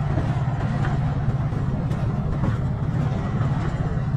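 Vehicle engine running steadily while driving: a continuous low drone with a fine, fast throb.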